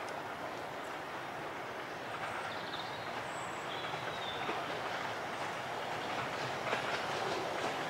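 Miniature 2-6-2T steam tank locomotive approaching along the track, its running sound growing steadily louder as it nears.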